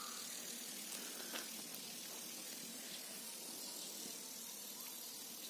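Faint, steady outdoor background hiss, with a light click or two.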